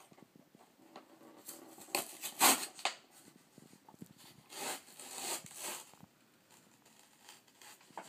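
A cat's paws and claws scuffing and scratching on carpet as it bats at yarn. The scratchy rustling comes in two bursts, the loudest about two and a half seconds in and another around five seconds.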